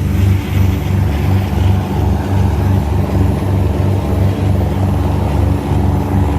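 A boat's engine running steadily with a low, even throb.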